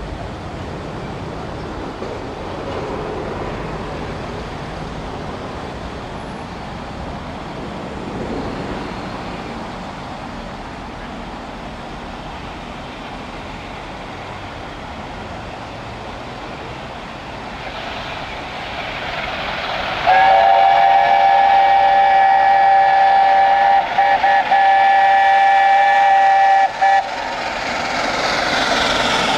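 Steam locomotive 60019 Bittern, an LNER A4 Pacific, sounding its chime whistle about two-thirds of the way in: a loud chord of several steady tones held for about seven seconds, with a couple of brief breaks. Before it there is a steady rushing noise, and near the end the noise of the approaching train swells.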